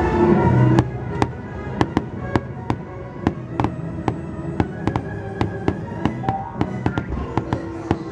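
Fireworks going off in a steady string of sharp pops and bangs, several a second, starting about a second in, over orchestral show music playing throughout.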